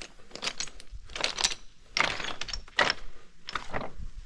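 Footsteps crunching and clattering on loose slate rubble, about six irregular steps with small clinks of slate pieces knocking together.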